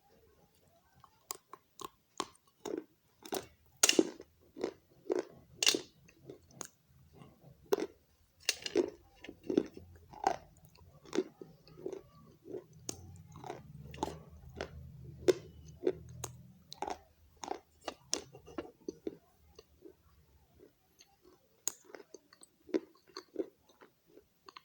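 A person biting and chewing pieces of baked clay pot, with a long run of sharp, crisp crunches, roughly one or two a second.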